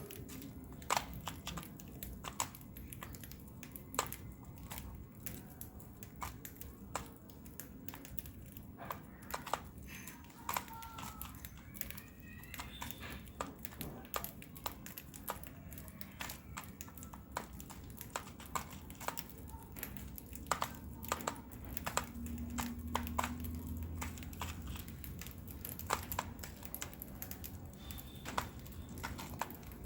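A lovebird cracking seeds, making irregular sharp clicks and crackles. A few faint short chirps come in around the middle and near the end.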